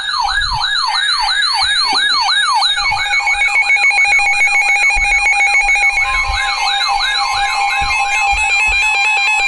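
Emergency alert alarms sounding for an incoming severe thunderstorm warning. An electronic siren tone sweeps up and down about three times a second. About three seconds in, a steady alert tone joins it, and a second steady pitch is added about six seconds in.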